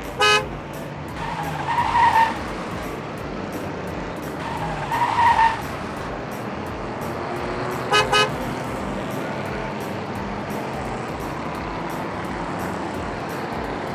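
Cartoon car sound effects: a small car's engine running steadily, with a short horn toot near the start and a quick double toot about eight seconds in. Two brief squeals sound at about two and five seconds in.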